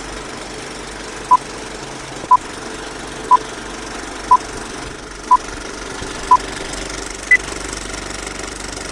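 Film-leader countdown effect: the steady rattle of an old film projector with a short beep once a second, six at one pitch and then a seventh, higher beep.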